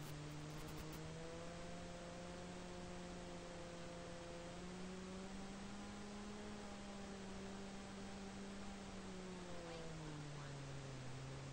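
Electric motor and propeller of a Sonicmodell Mako flying wing in flight, a faint pitched drone over a steady hiss. The pitch rises slowly, holds, then drops lower near the end as the throttle is eased.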